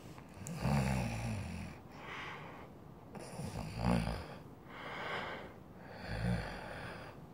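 A person's voice making low, rasping, snoring-like breaths, about five of them, each lasting half a second to a second.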